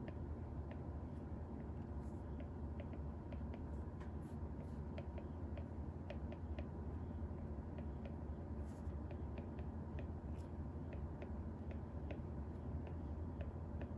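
Apple Pencil 2 tip tapping on an iPad Air 4's tempered-glass screen protector during handwriting: an irregular run of light clicks as the strokes are made. A steady low hum sits underneath.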